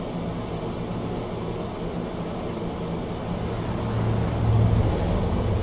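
Small KK-6 gas furnace fired by a hand torch on a gas cylinder, burning with a steady low rumble that grows a little louder about four seconds in.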